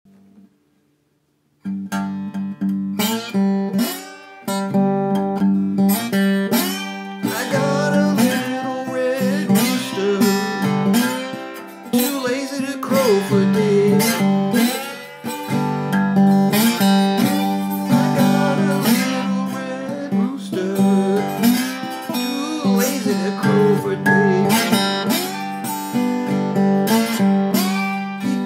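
Small-bodied acoustic guitar played bottleneck-style with a glass slide: a blues with a steady picked bass and notes that glide in pitch above it. It starts about a second and a half in.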